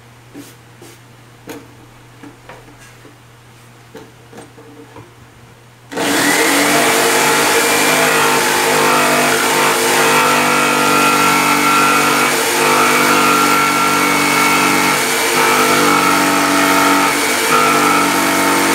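A few light taps, then about six seconds in a corded jigsaw starts abruptly and runs steadily, sawing a handle opening through the wooden top of a speaker cabinet.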